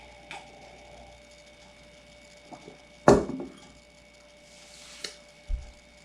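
A drinking glass of iced malt beverage being handled: a few light clicks and one loud knock with a short ring about three seconds in, followed by a brief faint hiss, another click and a low thump.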